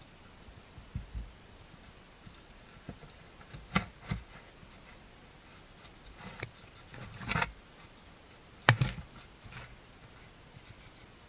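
A hedgehog making a handful of short, sharp clicks, thumps and puffs at irregular intervals, the loudest about nine seconds in.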